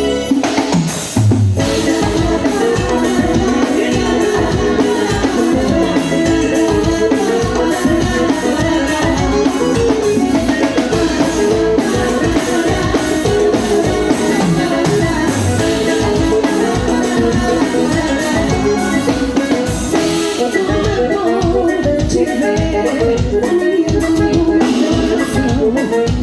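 Live band music at a soundcheck, with a drum kit and percussion keeping a steady, even beat under the pitched instruments.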